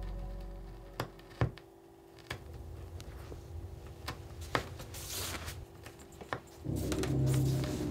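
Vinyl record under a turntable stylus: a couple of sharp clicks, then soft surface crackle with scattered pops from the lead-in groove. Music starts near the end.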